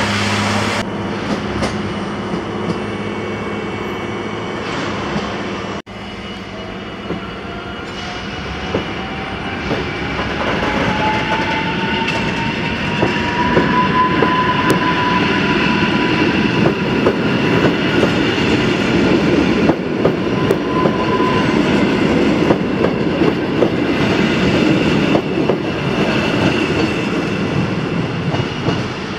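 Koleje Mazowieckie EN57AKM electric multiple unit pulling away: its electric drive whines, rising in pitch as the train gathers speed and then holding steady, while the wheels clatter over the rail joints more and more quickly.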